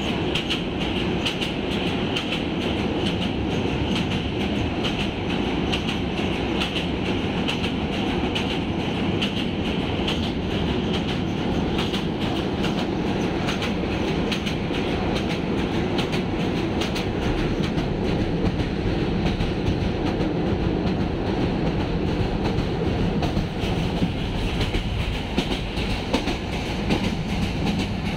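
Subarna Express passenger train running at speed, heard from inside a carriage: a steady rumble of wheels on rails with a quick clickety-clack of wheels over rail joints, while crossing a river bridge.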